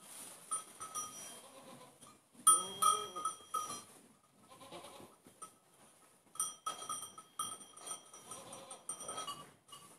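Goats bleating in the barn, the loudest call about two and a half seconds in, with fainter calls later. A small bell clinks in short repeated strikes through much of the second half.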